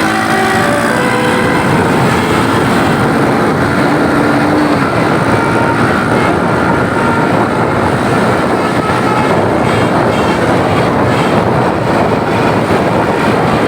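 Steady, loud rush of road and vehicle noise on the move. A multi-tone telolet bus air-horn melody trails off in the first second, and faint held horn notes linger until about halfway.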